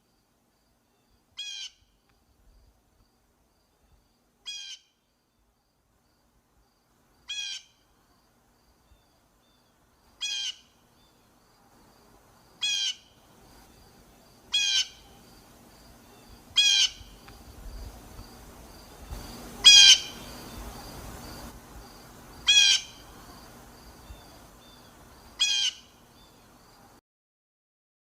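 Blue jay giving its harsh jay call over and over, one short call every two to three seconds, about ten in all, louder toward the middle. From about halfway a faint, rapid run of high notes and a low rumble sit underneath, stopping shortly before the end.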